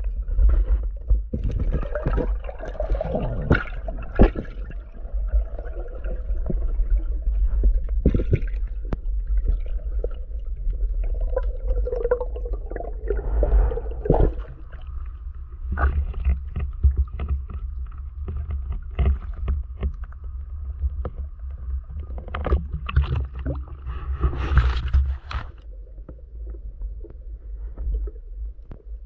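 Underwater camera sound on a freedive: a steady low rumble of water moving past the housing, with gurgling and scattered knocks and bumps as the diver swims with the speargun. A faint steady whine sits under it for about ten seconds in the middle.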